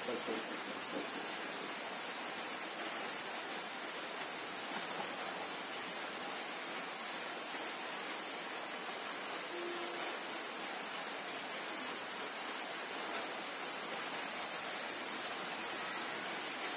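Crickets trilling steadily at night, a continuous high-pitched drone over a faint hiss.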